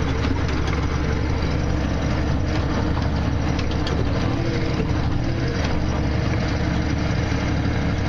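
Tractor engine running steadily while pulling a round baler through a windrow of hay, heard from inside the tractor cab as an even low drone with a few faint clicks.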